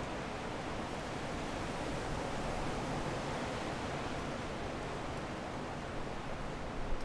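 Strong wind blowing steadily, a dense rushing noise with slight swells, a few small gusts near the end.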